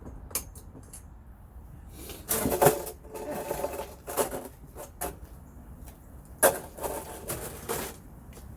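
Small metal hardware clinking and clattering: washers and a ring being handled and fitted during assembly of a snow pusher's wheel. It comes in several clusters of sharp clicks, some with a brief metallic ring, the loudest about two and a half and six and a half seconds in.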